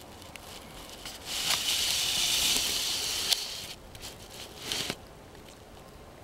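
Yorkshire terrier–poodle puppy gnawing a chew toy right at the microphone: a crackling, rustling noise lasting about two and a half seconds from about a second in, then a shorter burst near the end.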